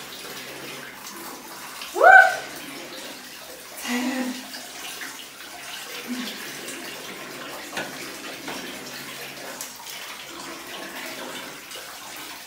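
Bathwater sloshing and splashing in a tub while a toddler's hair is washed by hand. About two seconds in comes a short, high, rising vocal squeal, the loudest sound, with a couple of brief softer vocal sounds after it.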